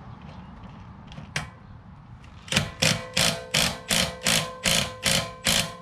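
A single click, then a quick run of nine sharp metal strikes, about three a second, each leaving a short metallic ring.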